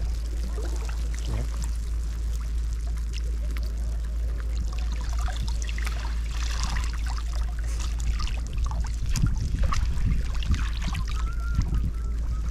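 Water splashing, sloshing and trickling close by, in small irregular splashes that grow busier about halfway through.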